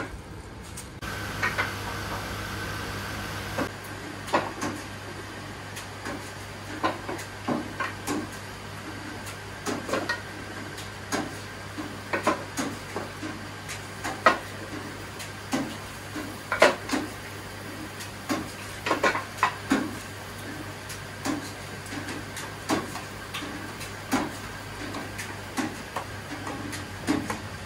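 Irregular clinks and knocks of square metal tamagoyaki pans and chopsticks as thick egg rolls are turned and shifted on the stove, over a steady low hum.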